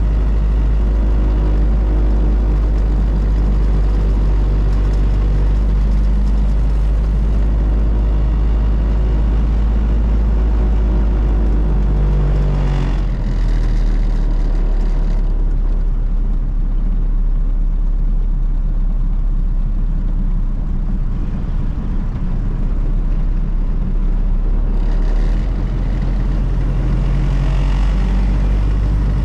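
A 1932 Ford Model B's four-cylinder engine is heard from inside the cabin while the car drives along. The engine drone eases off for several seconds in the middle and picks up again near the end.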